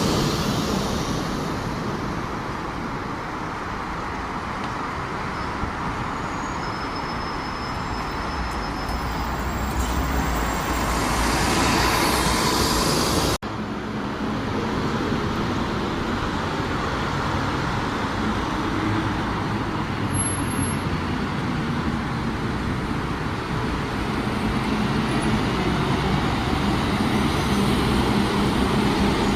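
Road traffic with buses running, a steady mix of engine rumble and tyre noise. It breaks off abruptly about 13 seconds in and picks up again with similar traffic sound.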